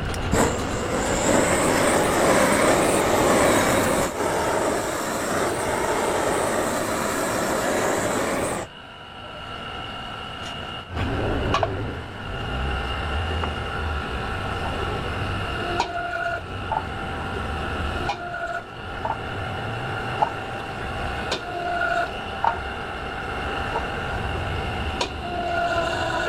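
Wheel-repair shop machinery at work on a bent alloy rim. A loud, even rushing noise runs for about eight and a half seconds and cuts off suddenly. Then comes a steadier machine whine with a low rumble and scattered sharp metallic clicks.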